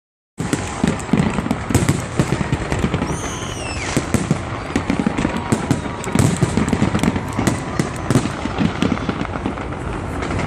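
Fireworks display: a rapid, continuous crackle and popping of many bursting shells, with a brief whistle about three seconds in.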